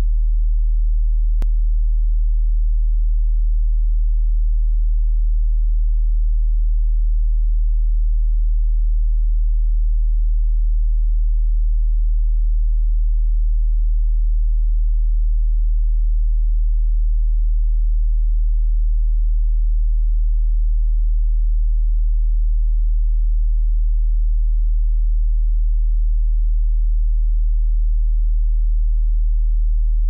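A steady pure sine tone at about 38.9 Hz, the note D#1: a very deep, unchanging hum. A faint click about a second and a half in.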